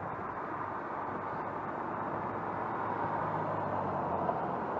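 Road traffic: a car passes, its engine and tyre noise swelling gently around three to four seconds in over a steady hiss of traffic.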